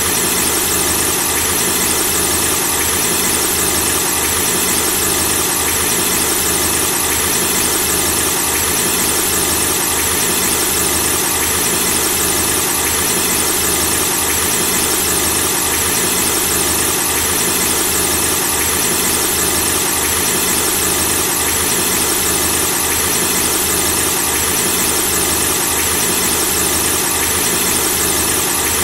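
Car engine running with a steady squeal over it. A regular low pulsing runs underneath.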